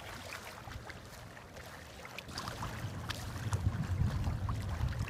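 Wind buffeting the microphone, a low rumble that grows stronger about halfway through, over the faint lapping of choppy river water.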